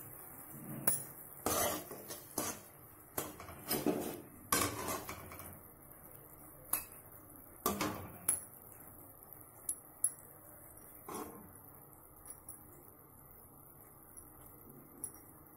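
Wooden spatula knocking and scraping against a metal kadai while stirring sugar syrup that is being boiled toward one-string consistency. The knocks are irregular, frequent for the first several seconds and sparser after that.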